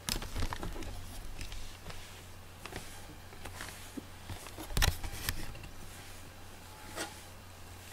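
Soft, irregular rustling and clicking from a cat shifting about and grooming its fur close to the microphone, with a sharper knock about five seconds in.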